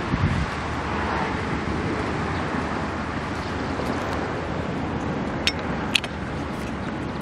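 Steady outdoor background noise of distant traffic and wind, with two sharp clicks about half a second apart some five and a half seconds in.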